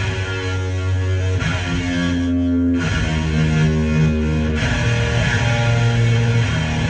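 Electric guitar played through a Death By Audio Crossover Fuzz pedal stacked with overdrives: heavily distorted, sustained notes and chords that change every second or so.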